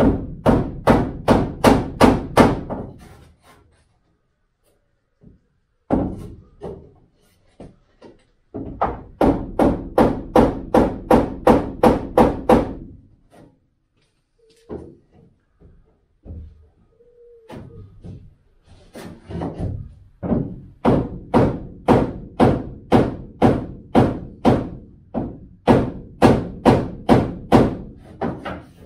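Hammer striking a wooden block held against a VW T2 Bay campervan's body trim, tapping the trim strip loose: quick runs of knocks, about three to four a second, with pauses between the runs.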